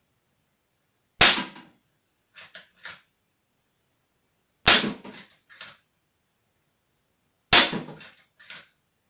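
Walther Lever Action CO2 air rifle fired three times, a few seconds apart, each sharp crack followed about a second later by two quieter clicks as the lever is worked down and back up to chamber the next pellet.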